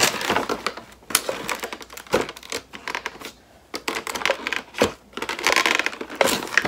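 Advent calendar packaging being handled and pried at: irregular clicks and knocks with short bursts of crinkling.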